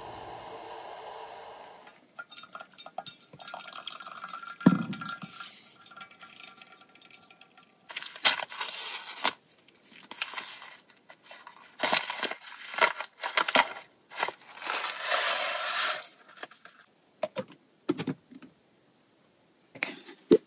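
Crinkling and rustling of a paper oatmeal pouch as it is handled, torn and emptied into a steel cup, in a string of short bursts of noise, with a sharp knock about five seconds in. A steady hiss cuts off about two seconds in.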